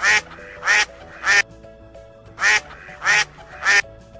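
Duck quacking: two runs of three short quacks, about a second apart.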